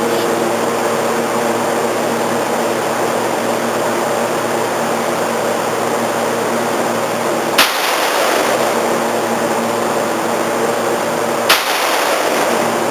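Steady fan-like hum and hiss, broken twice by a sharp click about four seconds apart.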